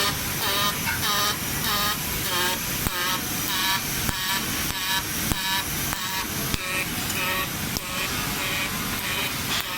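Robotic arc welding on a bicycle frame: a steady crackling hiss of the welding arc. Over it, a short pitched sound repeats about twice a second, strongest in the first half.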